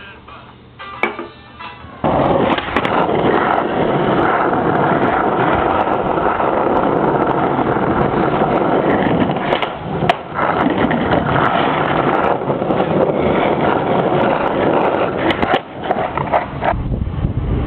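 Skateboard wheels rolling on street asphalt: a loud, steady rolling rumble that starts about two seconds in, with scattered clicks and knocks from the board over the pavement.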